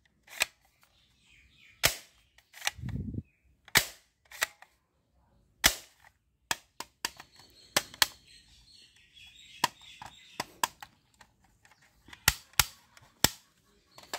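Plastic toy gun's trigger pulled again and again, giving a string of sharp clicks at irregular intervals, with a duller thump about three seconds in.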